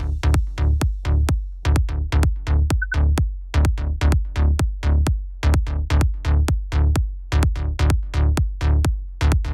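Electronic dance music without vocals: a driving drum-machine beat with a heavy kick and bass, about four hits a second.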